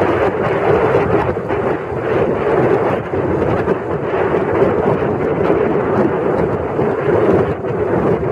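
Wind rushing and buffeting over the microphone of a moving motorcycle, with engine and road noise steady underneath.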